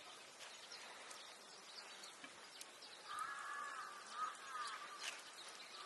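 Faint rural outdoor ambience of insects and birds. From about three seconds in, a louder wavering buzz lasts nearly two seconds.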